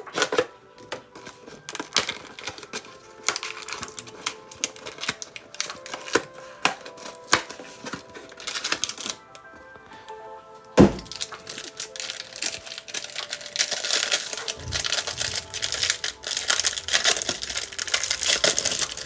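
Trading cards and packs being handled, making scattered light clicks and taps over quiet background music. About eleven seconds in there is a sharp knock, and after it comes steady crinkling of a pack wrapper being opened.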